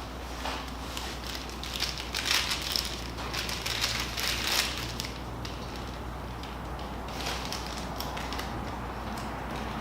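Irregular rustling, crackling and clicking of objects being handled, busiest in the middle, over a steady low hum.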